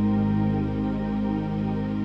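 Slow background music: one sustained chord held steadily, without a beat.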